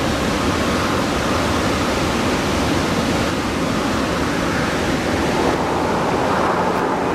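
A steady, even rushing noise with no engine note heard.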